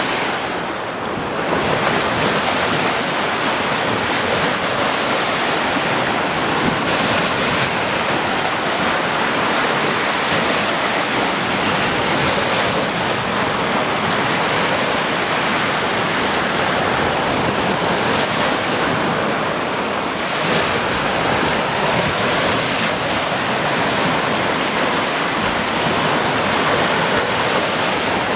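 Sea waves washing onto the shore: a steady, continuous rush of surf with only slight swells in loudness and no separate crashes.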